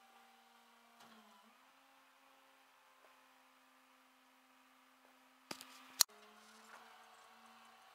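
A faint, steady machine hum whose pitch shifts slightly a couple of times, broken about two thirds of the way in by two sharp knocks half a second apart, the second much louder.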